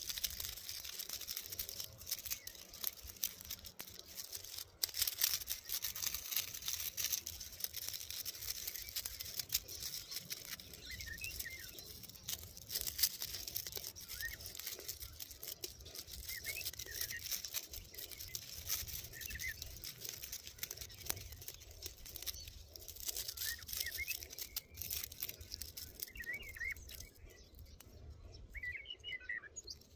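Dry leaves and soil rustling and crackling as fingers pick dead leaves and dirt off a clump of succulent rosettes and roots. Birds chirp faintly in the background, more often in the second half.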